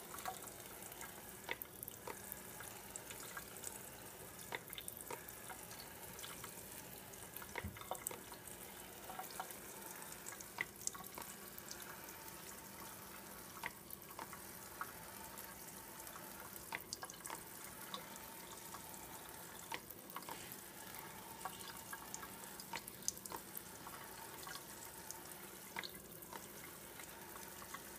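Kitchen faucet spray running onto a cylindrical metal-mesh vent filter in the sink: a steady hiss of water, with many scattered sharp ticks and drips throughout.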